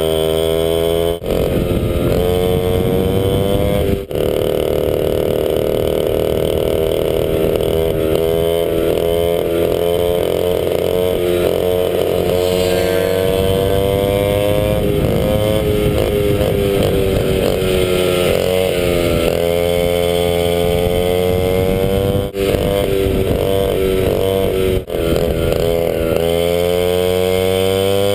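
100cc McCulloch MC8 single-cylinder two-stroke kart engine running hard at high revs, its pitch climbing and falling repeatedly as the kart accelerates and slows through the lap. The sound cuts out for an instant four times.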